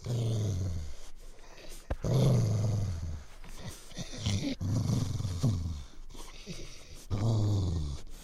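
Low, dog-like growls for a were-dog creature sound effect, about five in a row, each lasting up to about a second with short pauses between.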